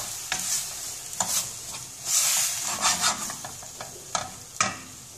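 Chopped onion and green and red peppers sizzling in oil in a stainless steel pan, stirred and scraped around with a wooden spoon in uneven strokes, the loudest about two seconds in.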